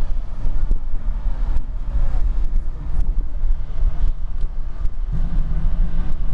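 Road noise inside a moving car: a steady low rumble of tyres and engine, with a few small knocks from bumps in the road.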